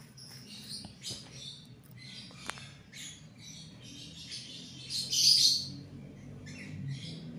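Paintbrush bristles scrubbing dust off a laptop's opened-up circuit board and metal parts, in short, irregular scratchy strokes. The loudest stroke comes about five seconds in, with a single click a little before.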